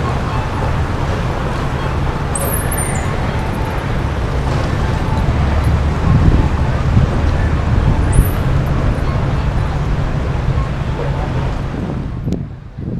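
Busy city street traffic: a steady rumble of passing cars and engines, with two brief high squeaks, one about two and a half seconds in and one about eight seconds in. It thins out abruptly near the end.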